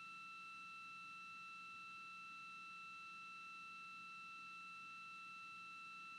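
A faint, steady, high-pitched electronic tone with weaker higher tones stacked above it, over a low hum.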